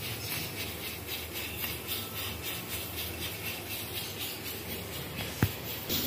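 Aluminium pressure cooker on a lit gas burner, hissing steadily as it builds up steam before the whistle weight starts to rock. One sharp click near the end.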